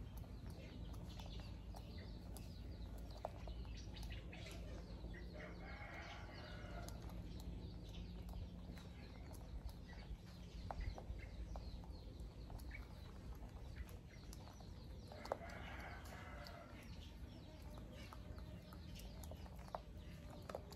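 A macaque grooming a person's hair: faint close-up rustling of hair and small clicks as its fingers part and pick through it. Two short animal calls sound in the background, about six and fifteen seconds in.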